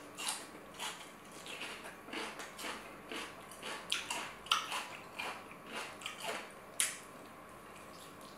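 Close-up mouth sounds of someone chewing crunchy food: a run of irregular crisp crunches, roughly two a second, that stops about seven seconds in.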